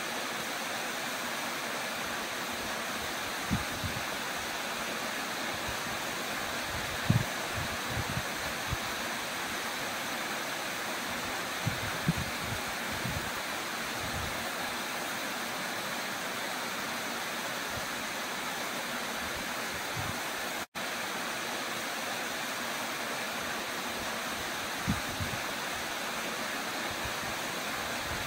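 Waterfall pouring into a rock plunge pool: a steady, even rushing of falling water. A few brief low thumps break through now and then, and the sound drops out for an instant about two-thirds of the way through.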